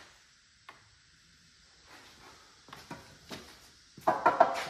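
Hands handling an old Yamaha dirt bike: a light click, a few soft knocks and rustles, then a louder rubbing scuff about four seconds in as a hand sweeps over the dusty tank.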